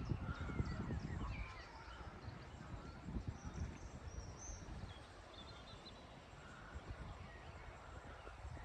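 Faint birdsong: several short chirps and whistled notes. A low rumble sits under it and fades after the first second and a half.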